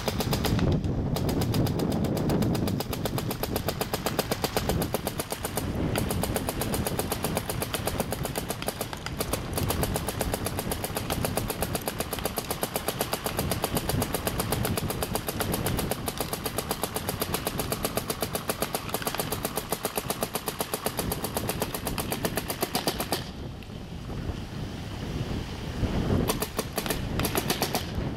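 Dye DM4 electropneumatic paintball marker firing in long, fast strings of shots, with brief pauses and a longer one a few seconds before the end. The breakbeam eyes are not working, so the rate of fire is capped pretty low.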